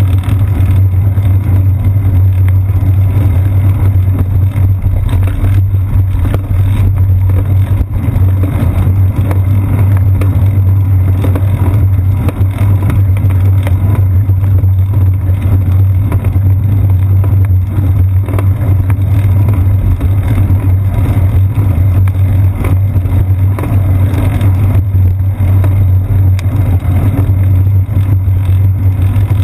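Steady low rumble of wind buffeting and road vibration picked up by a seat-post-mounted GoPro Hero 2 as the bicycle rolls along a paved path.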